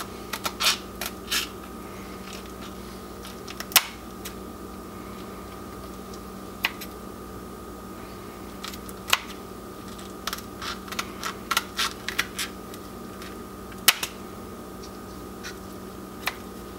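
Kitchen shears cutting along either side of a skinned quail's spine: irregular sharp snips and crunches through the small bones, some in quick runs of several, others single with pauses between.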